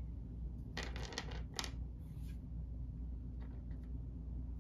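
Small plastic miniature figures clicking and clattering as they are handled and set down in a pile on a wooden table: a cluster of clicks about a second in, then a few fainter ones near the end.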